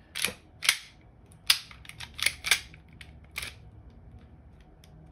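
Airsoft Hi-Capa gas blowback pistol's slide and metal parts clacking as the slide is worked by hand on the frame during reassembly: a quick series of sharp clicks and clacks, about seven in the first three and a half seconds.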